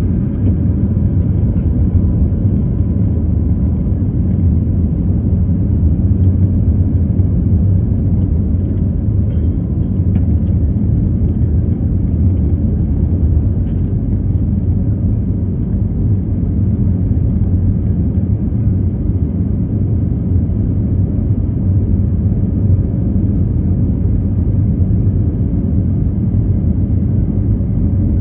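Cabin noise of an Airbus A321neo over the wing during takeoff and initial climb: the steady, loud low rumble of its Pratt & Whitney geared turbofan engines at high thrust, mixed with airflow noise.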